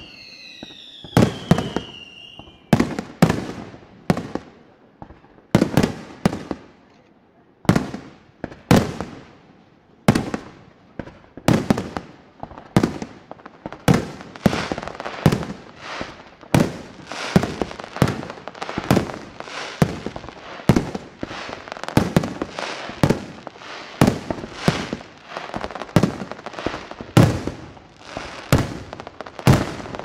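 Fireworks going off: a falling whistle over the first couple of seconds, then a run of sharp bangs, spaced out at first and coming faster from about ten seconds in, one or two a second.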